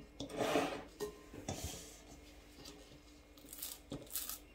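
A stainless steel bowl being handled on a digital kitchen scale: a short scrape about half a second in, then light knocks and a couple of soft rustles near the end, over a faint steady hum.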